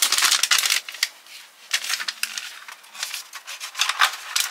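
Rustling and scraping of MRE packaging being handled: the plastic flameless-ration-heater bag, then a cardboard entrée carton. It starts with a long rustle, followed by several shorter scrapes.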